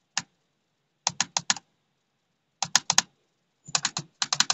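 Keyboard typing in short bursts: a single keystroke, then two quick runs of about four keys, then fast continuous typing near the end.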